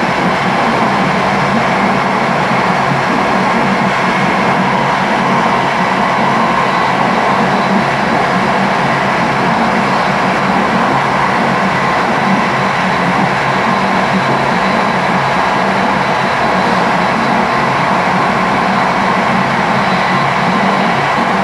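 Train running steadily at speed, a continuous even rumble heard from the driver's cab.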